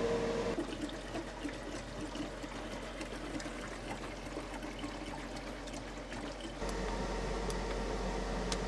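Liquid pouring or running steadily. About six and a half seconds in, it gives way to a steady electrical hum.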